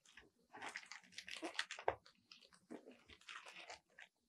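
Clear plastic packaging crinkling and rustling as hands handle and shift wrapped stationery, with a soft thump near the middle.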